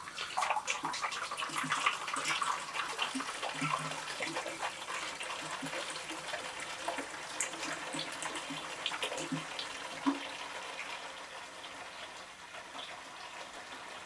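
Apple juice pouring from a gallon jug into a plastic fermenter: a steady splashing stream into the liquid already inside, easing off gradually toward the end.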